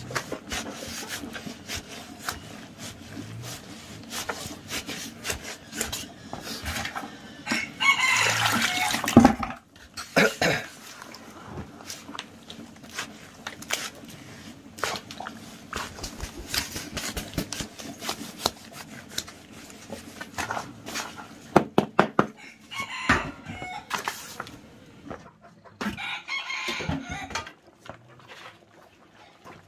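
A rooster crowing a few times, loudest about eight seconds in, over the wet knocking and scraping of a wooden stick stirring bran mash in a plastic bucket.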